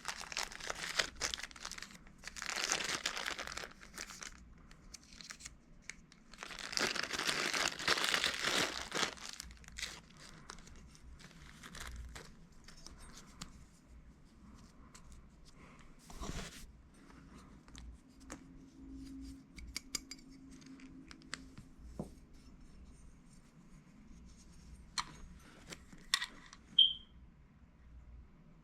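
Packaging being torn open and crinkled by hand: two longer rips about two and seven seconds in, then scattered small crinkles and clicks, with a sharp click near the end.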